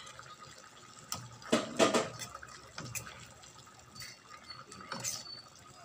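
Sliced red bell pepper going into a simmering beef and potato stew in a metal pan. A metal ladle clinks and scrapes against the pan as it stirs through the sauce, with a cluster of louder clatters about a second and a half to two seconds in and lighter knocks after.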